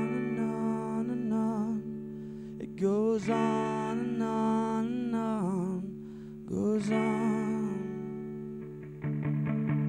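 Solo singer with electric guitar: a man's voice holds long wavering notes in three phrases over ringing, sustained guitar chords. Near the end the guitar switches to quick rhythmic strumming.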